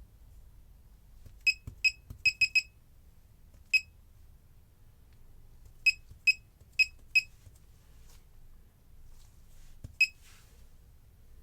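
Laser projection keyboard's keystroke feedback beeps: short, high electronic beeps, one per key press, coming in irregular clusters as keys are typed, about eleven in all.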